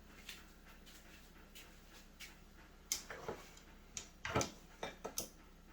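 Irregular light clicks and knocks of a kitchen utensil against a mixing bowl, a few followed by a short scrape, as butter, sugar and salt are worked together.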